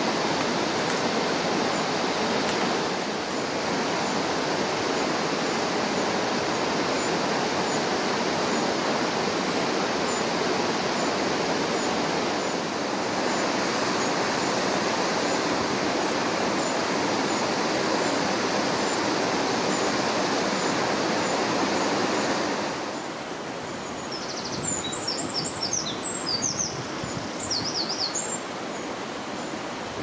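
Waterfall on the River Twiss rushing steadily. About 23 seconds in, the roar gives way to the quieter rush of the river running over rocks, and a small bird chirps in quick short notes for a few seconds.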